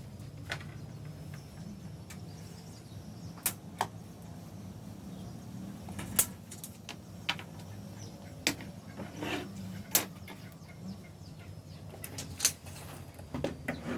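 Scattered light clicks and knocks, about a dozen at irregular moments, over a low steady hum.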